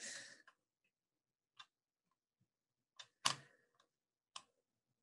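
Near silence with a handful of faint, short clicks spaced irregularly, the loudest a little past the middle.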